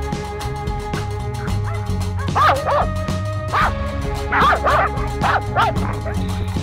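Background music with sustained chords. Over it, hunting laika dogs give a string of short, high yelping barks, mostly in the second half.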